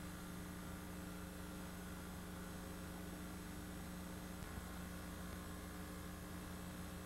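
Steady electrical hum with a constant hiss behind it, and no other sound.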